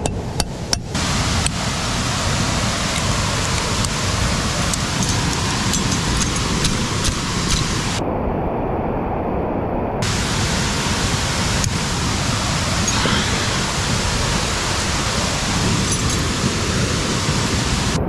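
Steady loud rush of a waterfall close at hand, with now and then a light metallic clink of carabiners and climbing gear; a few sharper clicks in the first second.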